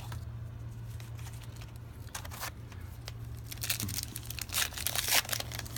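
Wrapper of a baseball card pack being torn open and crinkled, with short crackling bursts, the loudest run about four to five seconds in.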